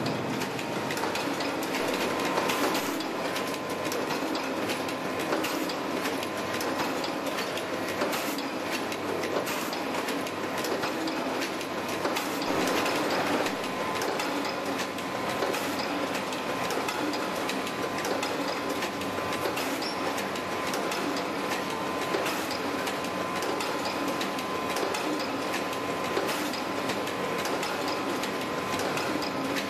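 Boleto automatic sea bream gutting machine running: a steady, dense mechanical clatter of many quick clicks and knocks, with a thin steady whine underneath.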